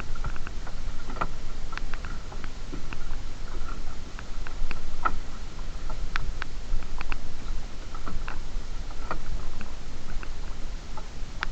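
Irregular sharp clicks and knocks, a few a second at most, over a steady low rumble.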